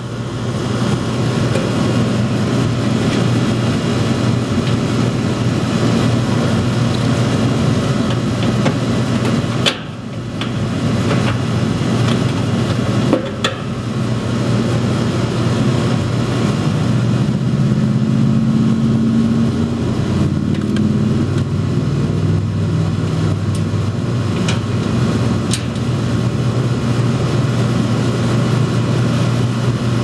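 Steady mechanical hum with a strong low tone, broken by a few sharp clicks as a screwdriver drives the access-panel screws back into the air conditioner's sheet-metal cover.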